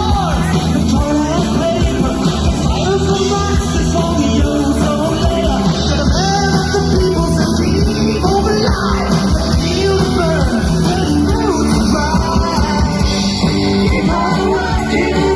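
Live rock band playing with a singer over a full, dense band sound, with sung lines running throughout.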